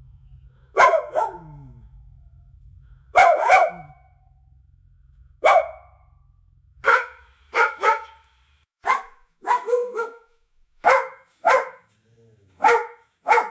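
Dog barking in short single and double barks, a few seconds apart at first, then coming faster, about one to two a second, from about seven seconds in. A low background hum sits under the barks and stops about halfway through.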